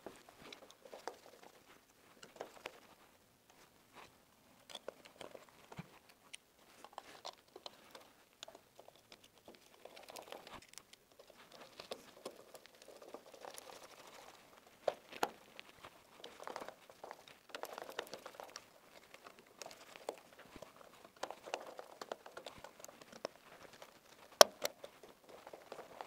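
Small clicks, scrapes and rustles of hands pushing an electrical insert into a flush wall box and turning its screws with a screwdriver, with a few sharper clicks, the loudest near the end.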